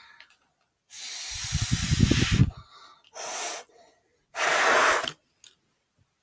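Several blow pens held together and blown through three times, a breathy hiss of air spraying ink. The first blow is the longest and loudest, with a low rumble; the other two are shorter.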